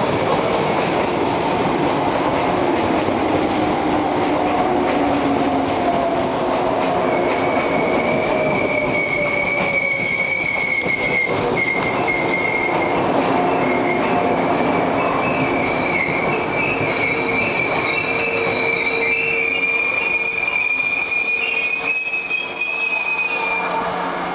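Izukyu 'Resort Odoriko' electric train pulling into a station platform and slowing to a stop: wheels rumbling and clacking over the rails, with a whine that falls in pitch over the first several seconds as the train slows. From about seven seconds in a high, steady brake squeal sets in, lasting until the train halts near the end.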